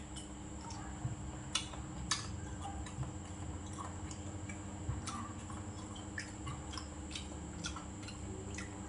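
A man chewing a mouthful of food close to the microphone, with irregular wet mouth clicks and smacks over a steady faint background hum.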